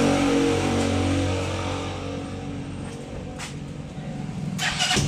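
Gato CG-250 motorcycle's air-cooled single-cylinder engine idling in neutral with an even beat. It fades a little through the middle and comes back louder just before the end.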